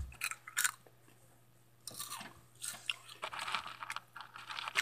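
Crunchy Hot Cheetos being bitten and chewed close to the microphone: a few sharp crunches, a pause of about a second, then a couple of seconds of steady crunching.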